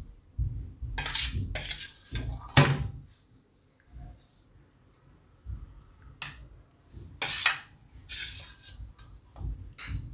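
Steel spoon scraping and clinking against plates while a crumbly mixture is spooned from a steel plate onto a ceramic plate: a string of short scrapes with soft thuds between, the loudest about a second in, two and a half seconds in and seven seconds in.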